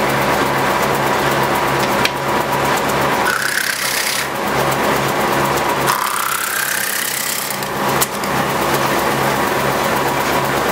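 1930s Osbyverken side planer, its large cutter disc spinning at full speed while barrel staves are planed along their edges: a loud, steady machine whir with a constant hum. Twice the sound changes into a higher, rising whine, once for about a second and once for nearly two, as the wood is cut. Two sharp knocks come about six seconds apart.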